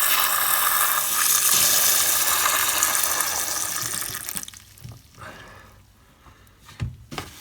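Water rushing out of the drain of a Spirotech dirt separator on a heating system, a steady loud gush that stops about four and a half seconds in, followed by a few light knocks.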